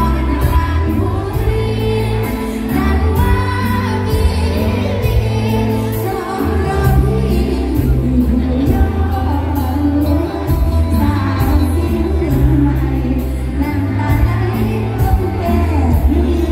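Live mor lam band playing loud through a big stage sound system: a steady drum beat and heavy stepping bass under a singer's voice.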